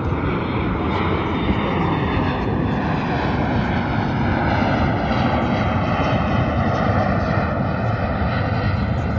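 Airplane flying low overhead, its engine pitch sliding slowly downward as it passes.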